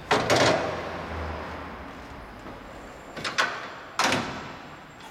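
1937 Rolls-Royce's louvred bonnet side panel being lowered and closed: sharp knocks, two close together at the start, then two more about three and four seconds in.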